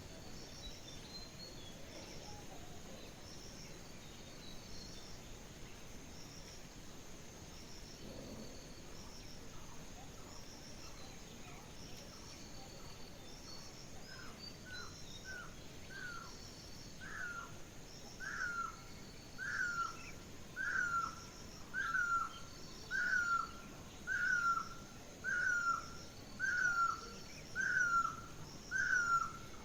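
Rural outdoor ambience with a steady hiss and high, rapid chirping throughout. From about halfway a bird repeats a single down-slurred call roughly once a second, growing louder until it is the loudest sound.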